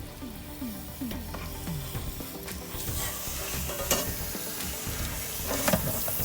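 Water gushing and splashing out of an RV water heater's drain opening as the tank is flushed with a rinsing wand, with a few gurgles and sharp knocks. The water is running brown with sediment.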